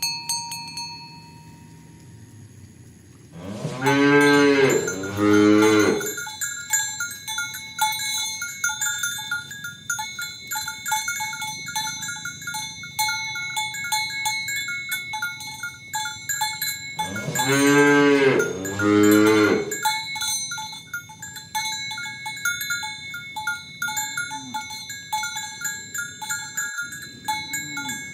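Cattle mooing twice, each a long call in two parts, over the continuous clinking of cowbells.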